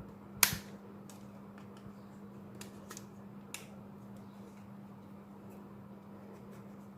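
Plastic clips of an Oppo A5s phone's frame snapping loose as it is pried off: one sharp click about half a second in, then several fainter clicks, over a faint steady hum.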